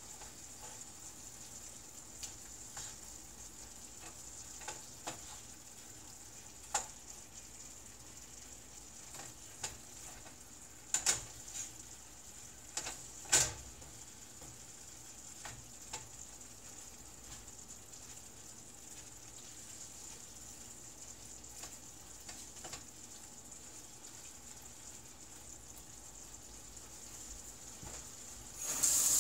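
Ground beef sizzling in a skillet: a steady faint frying hiss, with a few sharp clicks and knocks of the wooden spoon against the pan, the loudest about halfway through. A louder rushing noise starts just before the end.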